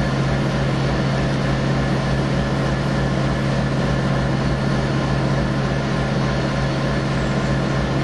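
EMD F59PHI diesel locomotive standing with its engine running, a steady low drone with a regular throb beneath it.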